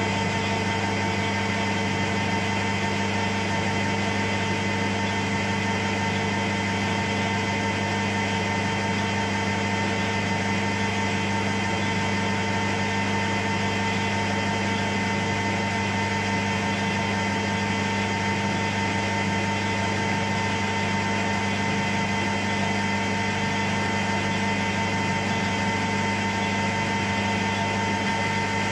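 Metal lathe running steadily, its motor and gearing giving a constant hum with a few fixed tones as the chuck spins.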